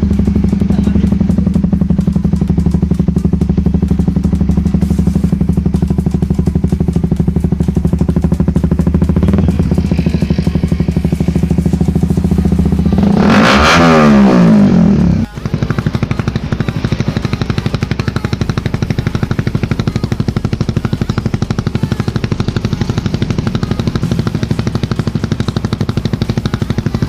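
Suzuki GSX-S150's single-cylinder four-stroke engine running through an aftermarket racing canister muffler, ticking over steadily. About halfway through it is revved up sharply, then cuts off abruptly and settles back to a steady idle.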